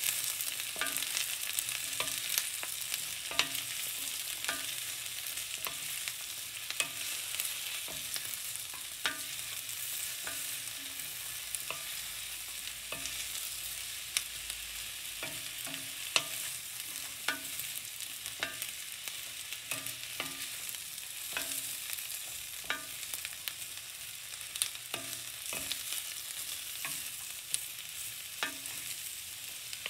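Sliced zucchini, carrot and onion sizzling as they fry in an enamelled cast-iron skillet, a steady hiss. A wooden spatula stirs them, knocking and scraping against the pan about once a second.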